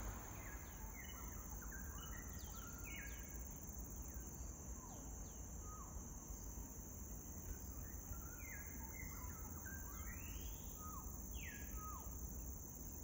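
Forest birds singing short whistled notes in scattered phrases, with two longer rising calls near the end, over a steady high drone of insects.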